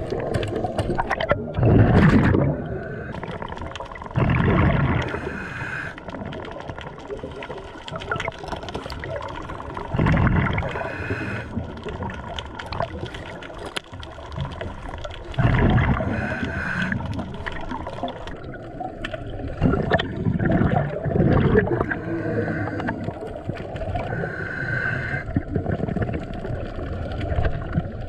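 A scuba diver breathing underwater through a regulator: bubbly rumbling exhalations every few seconds, with the regulator's hissing inhalations between them.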